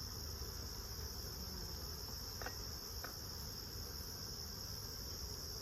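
Steady high-pitched chorus of singing insects, with a low rumble underneath and two faint ticks about halfway through.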